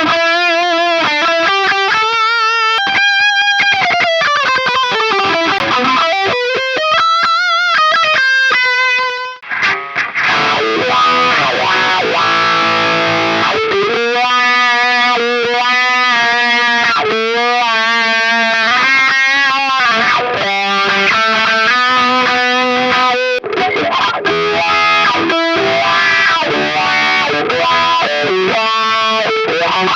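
Distorted electric guitar played through a Dunlop GCB95 Cry Baby wah pedal. The first third holds long bent notes with vibrato and a slide down and back up. After a brief break about nine seconds in come faster lead lines.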